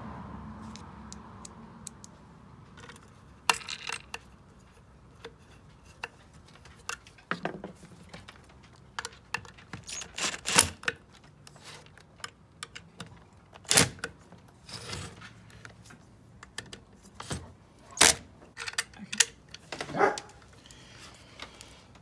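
Scattered clicks, taps and clinks of a screwdriver, screws and the metal and plastic parts of a dishwasher drain pump motor being handled and put back together on a wooden table, with a few louder knocks as parts are set down.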